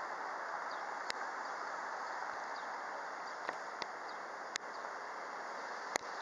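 Steady outdoor background noise, with five short sharp clicks scattered through it.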